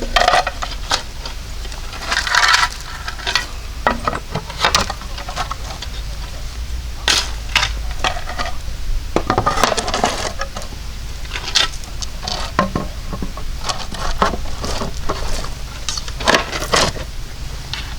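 Cookware and utensils clinking and knocking as they are handled, with a few brief scraping or rustling noises between the knocks.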